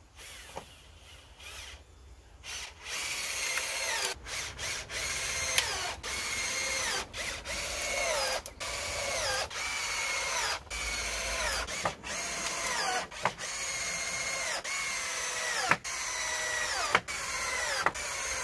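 Cordless drill fastening the pallet-wood backrest slats, run in a dozen or so short bursts. Each burst's motor pitch falls away at its end, with brief pauses between runs.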